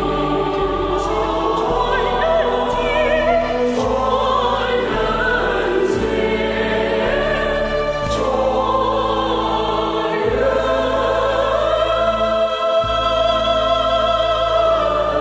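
A choir singing a slow song over instrumental accompaniment, the voices holding long notes with vibrato above a bass line that changes every couple of seconds.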